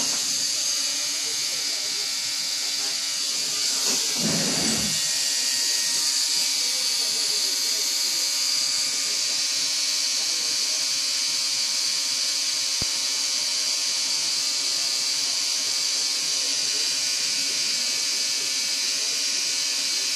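Permanent-makeup machine pen buzzing steadily as it works hair strokes into an eyebrow, with a brief rustle about four seconds in.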